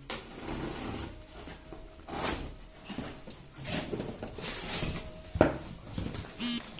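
Cardboard packaging being handled during a laptop unboxing: rustling and scraping, with one sharp knock about five and a half seconds in.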